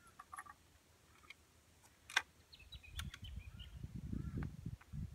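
Quiet reloading of a break-action single-shot rifle: faint handling ticks, then one sharp click about two seconds in as the action is closed. After that comes a low rumble, and a few faint bird chirps can be heard in the background.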